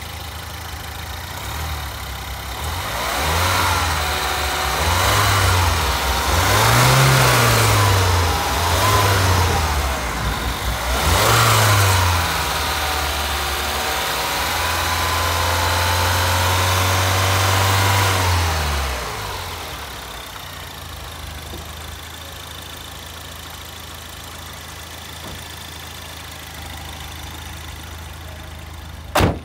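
2008 Mini Cooper S R56's N14 1.6-litre turbocharged four-cylinder engine idling, blipped up five times in quick succession, then held at raised revs for about five seconds before falling back to a steady idle. Near the end the bonnet is shut with a single sharp bang.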